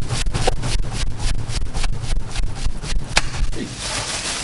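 A flat board waved quickly by hand to fan the charcoal in a barrel smoker: rapid whooshing strokes of air, about four a second, easing off near the end. The fanning stokes the dying charcoal back to flame.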